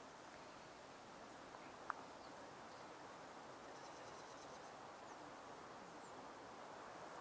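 Near silence: faint outdoor ambience with a steady soft hiss, one short sharp chirp about two seconds in, and a few faint high chirps later.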